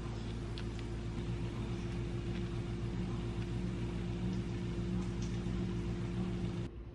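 A steady low mechanical hum, with faint scrapes and light taps of a metal fork spreading mashed avocado on English muffin halves over a wooden cutting board. The hum drops in level suddenly near the end.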